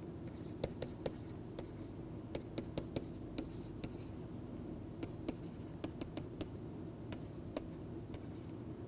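Stylus writing on a pen tablet: irregular sharp ticks and light scratches of the pen tip, a few a second, over a steady low hum.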